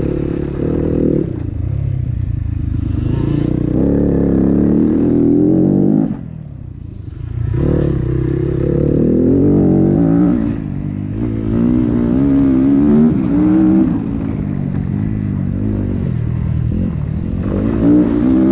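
Yamaha WR250F 250cc four-stroke single-cylinder dirt bike engine under hard throttle, its pitch rising and falling again and again as the rider accelerates and backs off. Heard from a helmet-mounted camera, with a brief drop in level about six seconds in as the throttle is closed.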